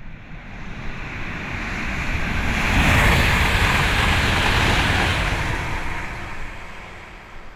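A rushing noise with a deep rumble under it swells for about three seconds and then slowly fades away, like something passing by.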